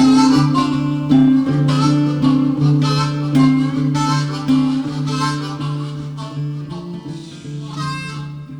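Background music: harmonica over strummed acoustic guitar in an instrumental passage, slowly fading out.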